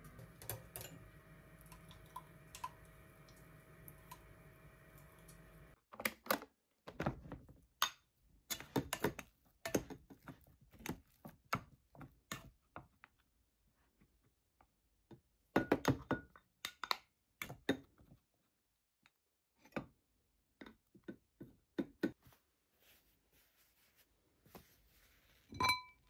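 Dishes and utensils being handled: scattered clicks and knocks as rice is scooped from a rice cooker with a plastic paddle and bowls are set down, ending in a ringing clink as the ceramic lid of a donabe clay pot is lifted. A steady low hum lies under the first few seconds, then stops suddenly.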